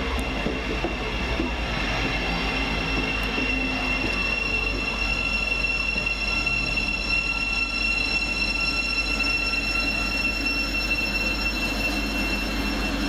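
A Class 700 electric multiple unit moving through the station, giving a steady high-pitched whine made of several held tones over a low rumble.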